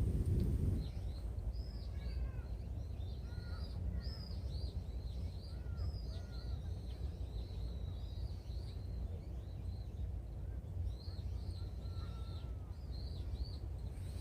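Birds calling: many short, high, arched chirps in quick succession, with a few lower calls among them, over a steady low rumble.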